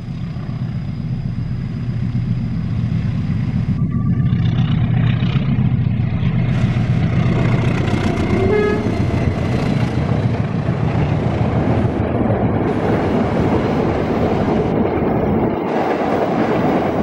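Diesel locomotive passing close by with passenger coaches: its engine drone grows louder about four seconds in. The steady rumble of the coaches' wheels on the rails takes over in the second half.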